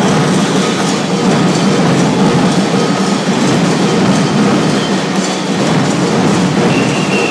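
Capoeira percussion ensemble playing a dense, steady rattling rhythm.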